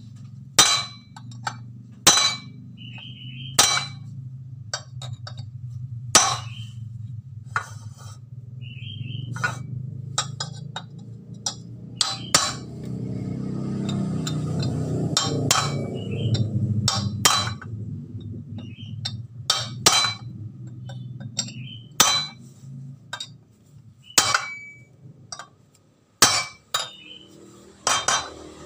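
Hammer blows on a steel drift rod set against a Honda Beat crankshaft, each a ringing metal clink. They come at an uneven pace, about one every second or two, with a few seconds' pause in the middle: the crankshaft is being pressed back together around its connecting rod. A low steady hum runs underneath and swells midway.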